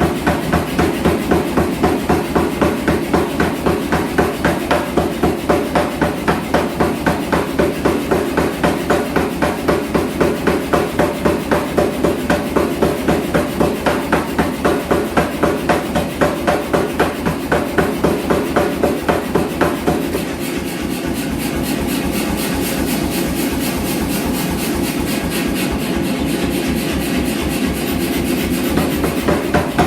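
Mechanical power hammer striking hot steel in a fast, steady rhythm of repeated blows. About twenty seconds in, the heavy blows stop and the machine keeps running more quietly; the heavy blows return near the end.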